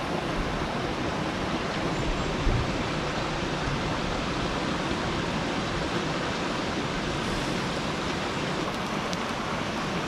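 Steady rushing of flowing water, with one low thump about two and a half seconds in.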